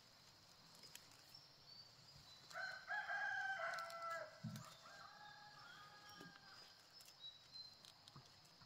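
A rooster crowing once, starting about two and a half seconds in, loud at first and then trailing off over a few more seconds.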